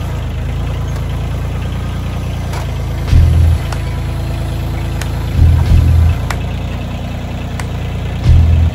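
Kioti CK2610 compact tractor's diesel engine running steadily, with three short, much louder low surges about three, five and a half, and eight seconds in as the tractor nudges forward, pushing its carry-all forks under a stack of pallets. A few light knocks sound in between.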